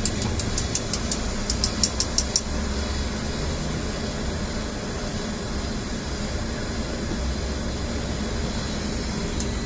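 Steady low rumble of a vehicle engine idling close by, with a quick run of sharp high clicks during the first couple of seconds.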